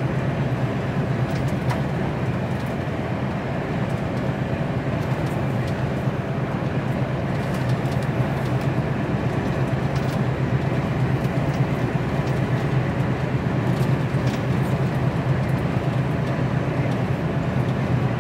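Steady drone of an HGV lorry's diesel engine together with tyre and road noise, heard from inside the cab while cruising at a constant speed on an open road. A few faint light ticks sit over the drone.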